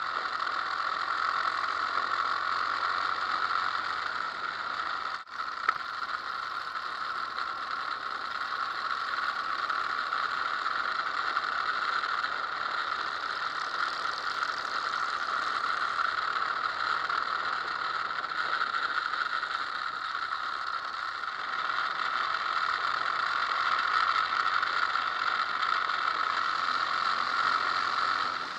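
Wind rush and a steady mechanical drone from a motorcycle riding at speed, picked up by a camera mounted on the bike. There is a brief dropout about five seconds in.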